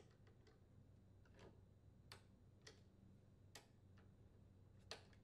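Faint, irregular clicks of a ratchet driving the air filter housing screws on a Briggs & Stratton mower engine, about half a dozen over a few seconds.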